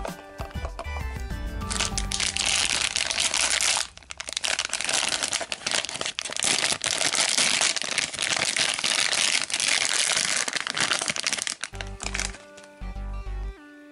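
A shiny foil blind bag being crinkled and torn open by hand, a loud, dense crackle from about two seconds in until near the end, with a brief pause partway. Background music plays underneath and comes to the fore at the end.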